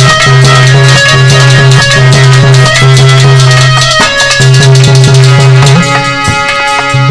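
Instrumental interlude of a folk band between sung lines. A held low melody note repeats in long strokes under drum and rattling percussion, and the tune changes near the end.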